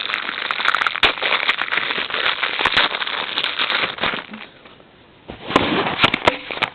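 Plastic packet of Dead Sea bath salt crinkling and rustling, with the coarse salt grains shifting inside, as it is handled to get the little scoop out. The crackling stops for about a second past the middle, then starts again.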